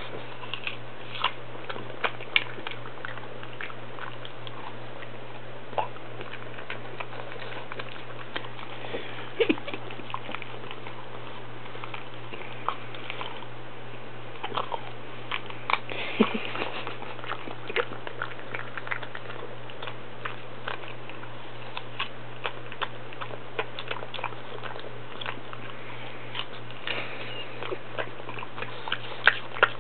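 A pug chewing and crunching a piece of apple held out by hand, with many irregular wet crunches and clicks from its bites.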